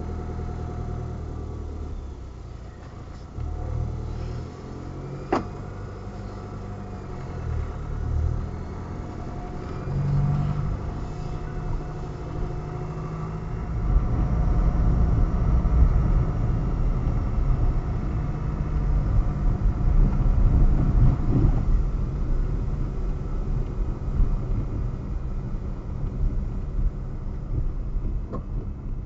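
Car engine running, heard from inside the cabin, as the car moves off and drives along a dirt road; the engine note shifts a few times early on. About halfway through, low road noise from the tyres on the unsealed surface grows louder, and there is a single sharp click about five seconds in.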